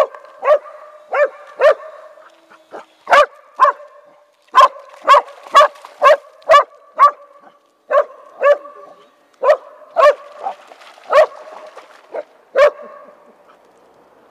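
Small dog barking repeatedly and excitedly, about twenty short sharp barks at roughly two a second, stopping near the end. A faint steady tone runs underneath between the barks.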